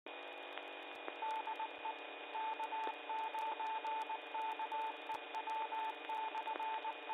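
FM two-metre radio channel heard through a receiver: the squelch opens on a hissy signal with a steady high whistle, and a mid-pitched Morse code tone beeps on and off in dots and dashes, typical of a repeater's CW identifier.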